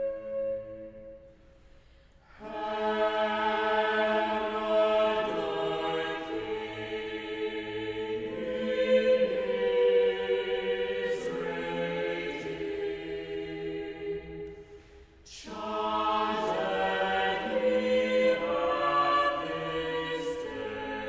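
A choir singing a Christmas carol. A held chord dies away, then after a brief silence the choir takes up a new phrase, pauses briefly about two-thirds of the way through, and sings on.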